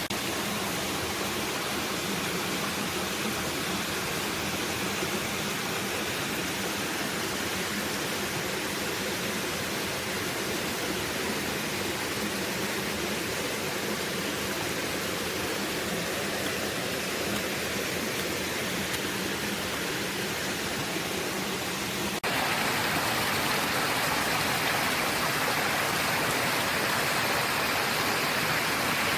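Steady rush of water falling and cascading from a waterfall. About 22 s in it cuts suddenly to a louder, brighter rush.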